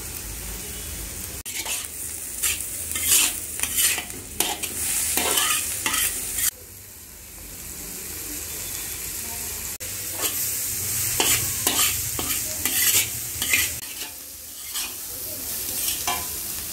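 Vegetables sizzling in a large black wok while a metal spatula scrapes and tosses them, in two runs of quick scraping strokes with a lull around the middle.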